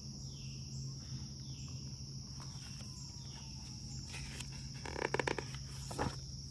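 Insects droning steadily at a high pitch in summer woodland, with a few short falling chirps in the first few seconds and a couple of brief louder noises near the end.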